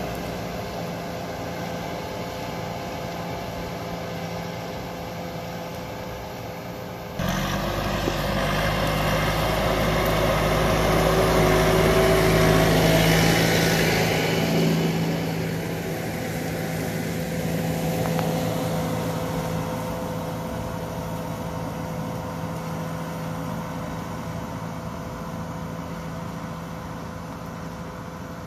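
Landini Rex 4 GT 80 tractor's diesel engine running steadily while pulling a mounted plough. It jumps louder abruptly about seven seconds in, peaks around twelve to thirteen seconds in as the tractor is close, then slowly fades as it moves away.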